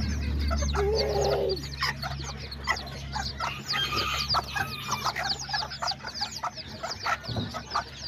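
A brood of bantam chicks peeping constantly in short, high, falling chirps, with a hen's lower call about a second in.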